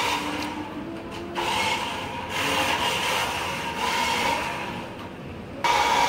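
Rechargeable toy remote-control car driving on a concrete floor: its small electric motor whines and its wheels roll, the sound swelling and fading as the car speeds up and slows. About five and a half seconds in it becomes suddenly louder and steady.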